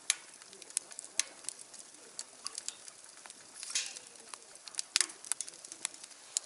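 Firewood burning, crackling with irregular sharp pops and snaps.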